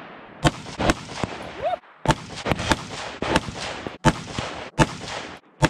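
A string of rifle shots from an AR-15-style rifle, about seven in five seconds at an uneven pace, each one ringing out with an echo.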